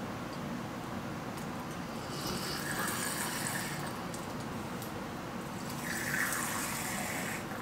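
Lemon juice squirted from a plastic lemon-shaped squeeze bottle into a shot glass, in two spurts: the first about two seconds in, the second near the end.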